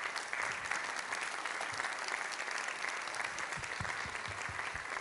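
Audience applauding: a steady, dense clapping from a seated crowd in a hall.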